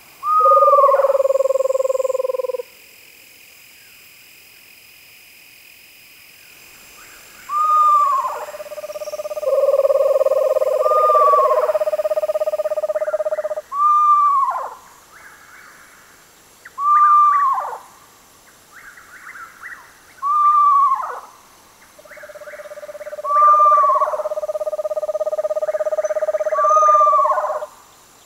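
Screech owls (Megascops) calling: short whistled notes that arch up and drop steeply in pitch, repeated about every three seconds, over long steady lower-pitched notes held for several seconds. A faint chattering runs beneath the later calls.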